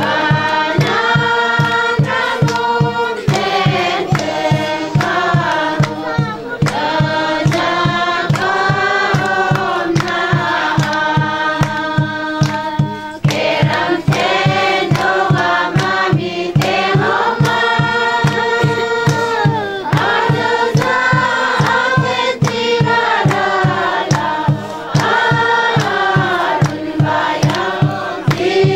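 A large group of voices singing together in long phrases, over a steady low beat about twice a second.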